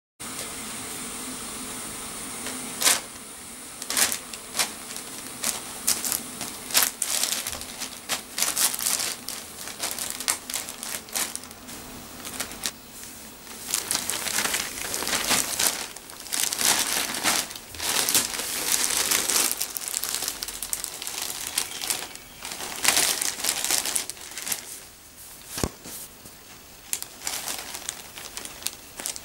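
A thin plastic carrier bag crinkling and rustling in irregular bursts as a cat paws at it, burrows its head in and climbs inside, with a few sharp snaps of the plastic.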